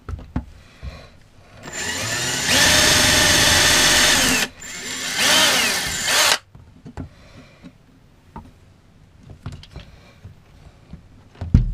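Ryobi cordless drill drilling holes, run in two bursts: a longer one of about three seconds that speeds up partway, then a shorter one whose pitch dips and climbs again. Light clicks and handling knocks follow, with a sharper knock near the end.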